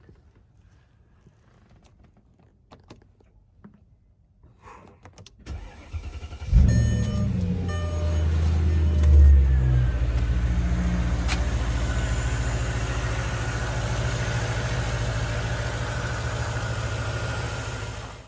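Mercedes-Benz R-Class engine cranking briefly and catching about six seconds in, flaring up, then settling into a steady idle: it starts after the crankshaft position sensor is replaced. A few light clicks come before it, and a few short beeps just after it fires.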